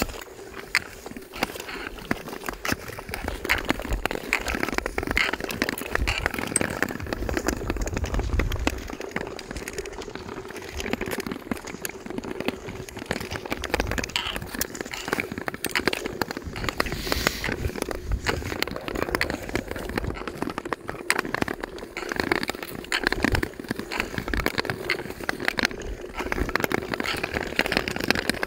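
Ice skates gliding and scraping over thin, clear new lake ice, with continuous crackling and clicking from the ice and blades.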